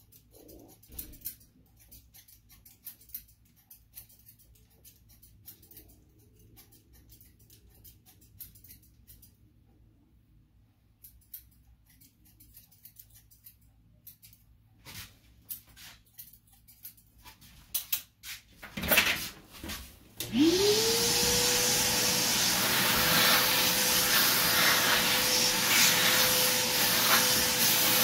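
Faint snips of barber's scissors, then about twenty seconds in a barber's hair vacuum switches on: its motor whine rises quickly to a steady pitch over a loud, steady rush of suction air.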